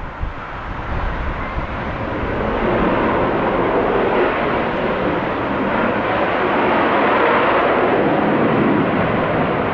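Jet fighter's engine at takeoff thrust as it lifts off and climbs away. It grows louder over the first few seconds and then stays loud.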